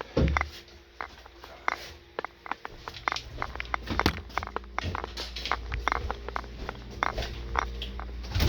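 A heavy thump just after the start, then many short clicks and knocks over a low rumble.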